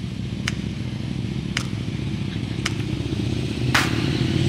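Steady low outdoor rumble with four short sharp clicks, about a second apart.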